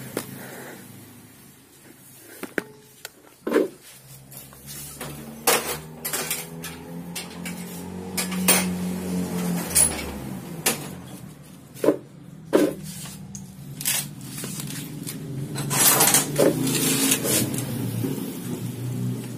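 Metal-on-metal clatter and sharp, irregular knocks: hand tools handled in a metal tray, and an impact screwdriver struck to drive the camshaft and rocker-arm-pin retainer screw into a Suzuki Hayate cylinder head. The loudest knocks come near the end.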